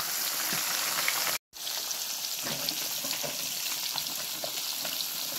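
Lambari frying in a pan of hot oil: a steady sizzle with small crackles, broken by a momentary dropout about a second and a half in.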